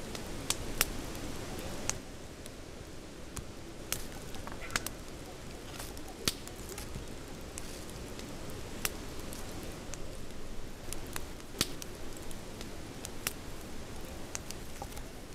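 Campfire crackling: irregular sharp pops and snaps over a steady low background noise.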